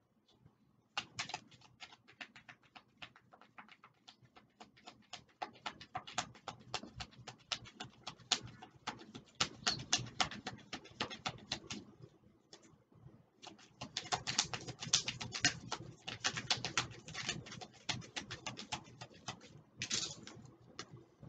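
A deck of oracle cards being shuffled by hand: a fast, irregular run of card flicks and slaps. It thickens in the second half, after a brief pause about twelve seconds in.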